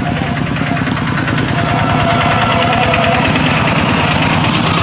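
Vehicle engine running close by, a steady rumble that gets a little louder about two seconds in.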